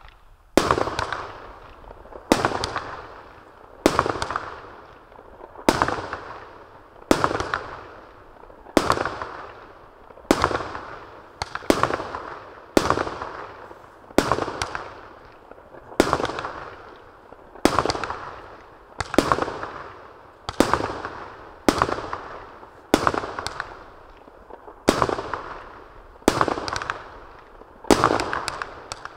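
A 100-shot consumer fireworks cake firing one shot after another at a steady pace, about one every second and a half: each is a sharp bang that trails off over about a second.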